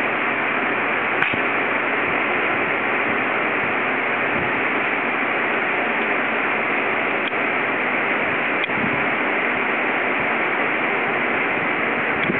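Steady, even rushing of an electric pedestal fan running, with a few faint ticks.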